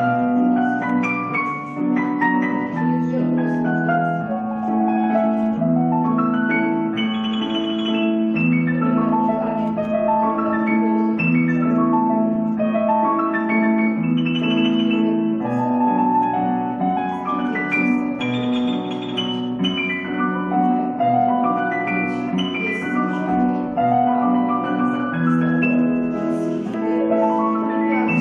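Instrumental accompaniment music for ballet floor exercises: a keyboard playing a slow melody of sustained notes over held low chords.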